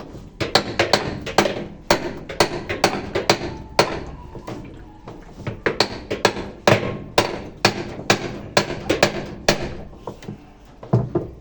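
Hammer blows on a Stilson pipe wrench, tightening the nut on a washing machine's new transmission: a quick series of sharp metal strikes, two or three a second, with a short pause near the middle.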